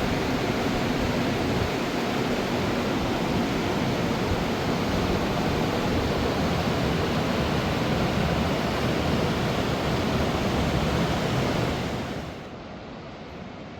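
Fast-flowing mountain river: a steady rush of water, dropping suddenly to a much quieter level near the end.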